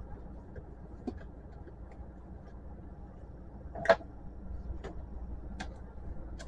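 A few short clicks and knocks of hand tools being handled on a workbench and a screwdriver being set against a screw in a printer's plastic casing, the sharpest knock about four seconds in, over a steady low hum.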